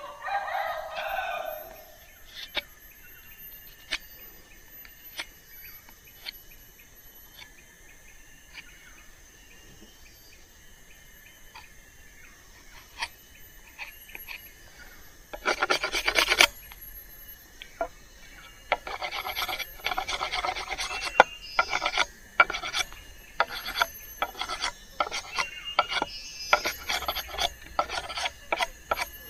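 Machete blade scraping and shaving a stick of wood as it is whittled into a stirring paddle. Single light strokes come every second or so through the first half. From about 18 s a quick run of scraping strokes follows, several a second.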